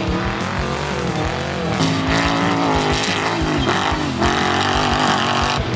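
Off-road race car engine revving hard, its pitch rising and falling as it is pushed through the gears.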